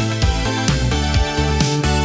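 Electronic retro-pop music: a steady kick-drum beat about twice a second under sustained bass notes and synth chords.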